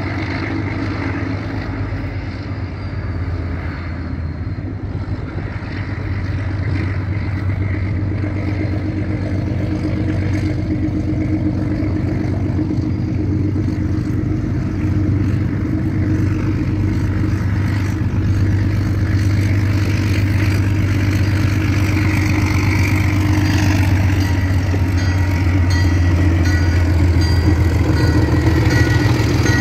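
Diesel locomotive engine running as the train approaches, a steady low hum that grows louder until the locomotive passes close by. High steady tones join in over the last few seconds as it goes past.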